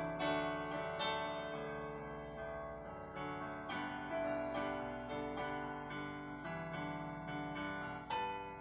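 Digital piano being played: a melody over held chords at a moderate pace, a new note or chord struck roughly every half second to a second, with the notes left ringing.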